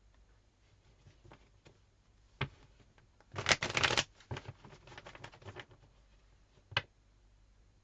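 Tarot cards being shuffled by hand: a short, dense burst of shuffling about three seconds in, with lighter card rustles and a few sharp taps of the deck before and after.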